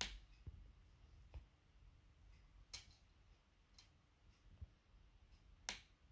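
Near silence with a few faint, sharp clicks of a magnetic charging cable and device being handled; the loudest click comes shortly before the end.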